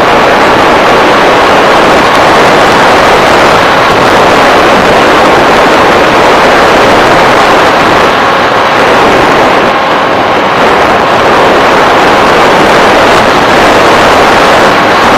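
Steady, loud rushing noise of an FPV model aircraft in flight: its motor and propeller running with wind over the onboard microphone, with a faint steady whine.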